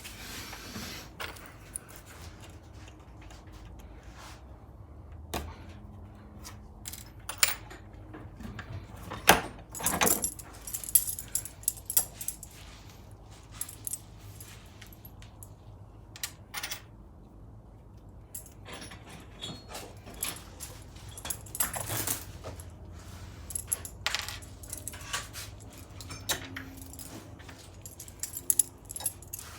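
Metal roller drive chain and its master joiner link clinking and rattling as they are handled with pliers: scattered sharp metallic clicks, loudest in bunches about a third of the way in and again about three quarters through.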